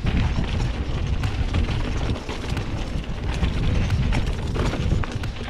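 Haro Shift R7 full-suspension mountain bike descending a dirt trail: a steady low rumble of tyres and wind buffeting the microphone, with frequent sharp clicks and rattles from the bike.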